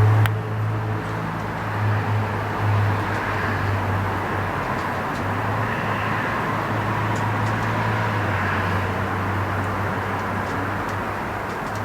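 Old tractor's engine idling steadily with a low hum that swells and fades a little, while its carburetor fuel-line fitting is checked for leaks. A few faint clicks sound over it.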